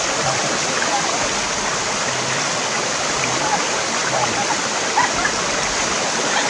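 Steady rushing of a rocky forest stream pouring over small cascades and waterfalls.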